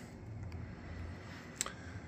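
Quiet room tone with a faint low hum, and a single short click about one and a half seconds in.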